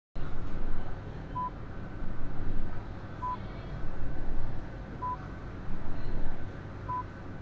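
Hemodialysis machine running: a short, high beep repeats about every two seconds over a steady machine hum that swells and fades in a regular rhythm.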